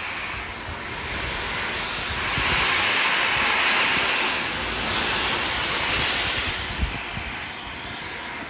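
Peppercorn A2 steam locomotive hissing steam as its train runs by, the rushing noise swelling twice, with wind buffeting the microphone and a single sharp knock about seven seconds in.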